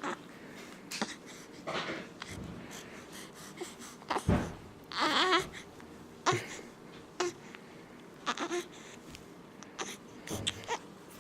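A 12-day-old baby making a string of short, sudden sounds at irregular spacing, with a brief wavering whimper of a cry about five seconds in.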